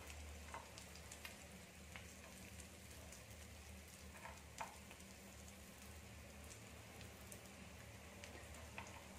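Faint sizzling of rava-coated clams in their half-shells shallow-frying in a pan, with scattered small clicks and pops.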